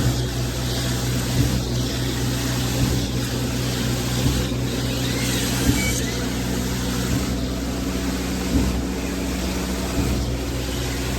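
Concrete pump truck running under load while pumping concrete: a steady diesel engine hum and hiss, with a knock about every second and a half as the pump changes stroke.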